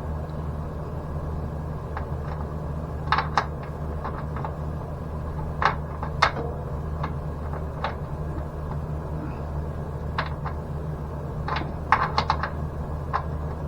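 Irregular light clicks and metallic taps of small hardware being handled: the side pipe mount's bolt, washers and rubber bushing being fitted into the frame. Underneath runs a steady low hum.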